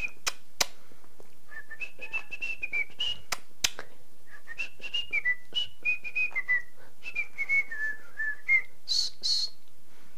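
A tune whistled in long held notes that step up and down, in several phrases broken by a few sharp clicks, with a brief higher, noisier sound near the end.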